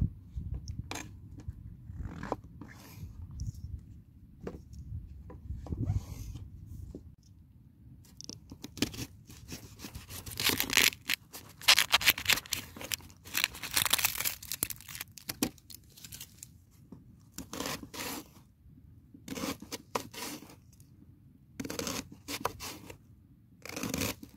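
Knife chopping vegetables, an onion among them, on a rubber cutting mat: scattered single cuts at first, a long run of rapid cuts in the middle, then short groups of cuts.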